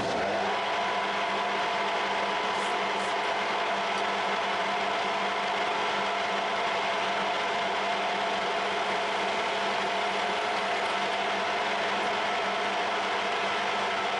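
Metal lathe running steadily, its four-jaw chuck spinning, while a spot drill in the tailstock drill chuck cuts a starting hole in the centre of the metal plate. It is a constant machine hum with a few steady tones.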